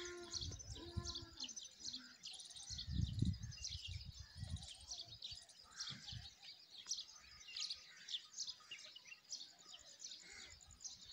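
Many small birds chirping and calling together in a busy morning chorus, with some low rumbles about three seconds in.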